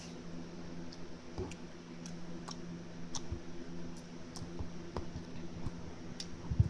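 Scattered light clicks and taps of a metal fork picking at food in a plastic container, over a steady low hum.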